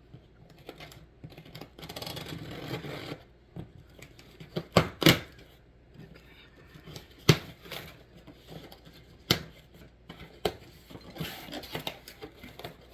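Packaging being handled and torn open: rustling, scratching and tearing, broken by several sharp clicks and knocks, the loudest about five seconds in.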